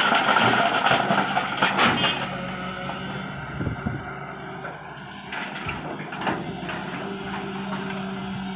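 Heavy diesel machinery engine running steadily, with a few short knocks and clanks over it.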